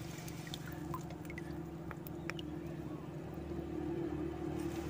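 Water running steadily out of a pipe into a shallow pool, a continuous hum with a low tone in it, and small splashes and drips as a hand gropes in the water for snails.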